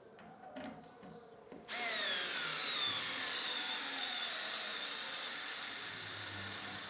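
Bosch GO cordless smart screwdriver's motor starting about two seconds in and driving a 5 mm × 40 mm screw at its maximum torque setting 6. Its whine drops in pitch as the screw loads it, then runs steadily for about five seconds and stops near the end, with a few light handling knocks before it starts.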